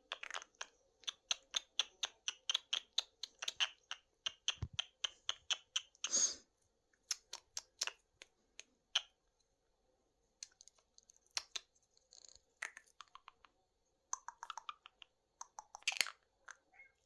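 Runs of rapid sharp clicking noises, about four or five a second, traded between a pet monk parakeet and its owner, with short pauses between runs. A brief harsh burst about six seconds in and another near the end.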